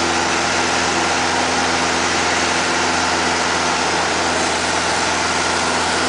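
Light aircraft's engine and propeller running steadily just after takeoff, heard inside the cabin as a constant drone with a low hum under a broad rushing hiss.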